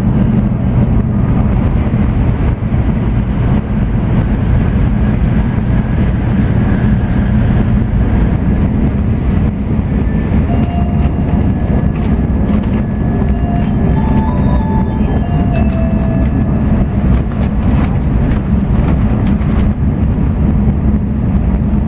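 N700-series Shinkansen heard from inside the passenger car while running at speed: a steady low rumble with a rushing noise over it, and light ticks in the second half.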